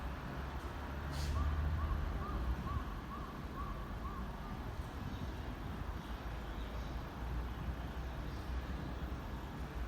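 Steady low rumble of electric trains at a station platform. A short hiss comes about a second in, followed by a run of about seven short chirps, a little under half a second apart, that stop after about four seconds.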